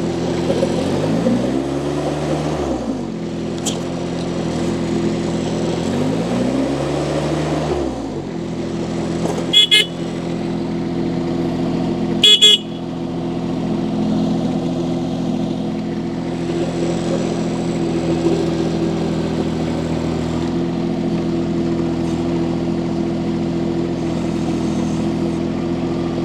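Mini skid steer loader's engine running steadily under test. Its pitch swells up and falls back twice in the first several seconds. There are two short, loud, sharp knocks about ten and twelve seconds in.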